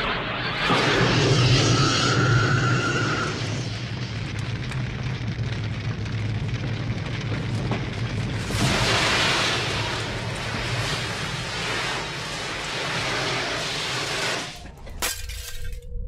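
Flamethrower blasting fire: a dense rushing roar over a deep rumble, with a louder burst about nine seconds in. Near the end it cuts to a single steady tone.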